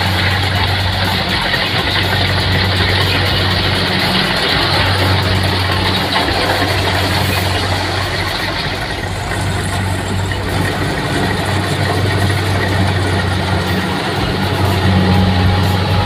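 Kubota rice combine harvester running steadily as it cuts rice in the paddy: a constant low engine hum with machinery noise over it.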